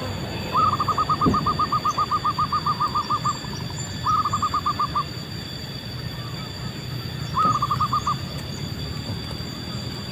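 Zebra dove (perkutut) calling: a rapid run of short, even coo notes lasting nearly three seconds, then two shorter runs of about a second each, over a steady low rumble.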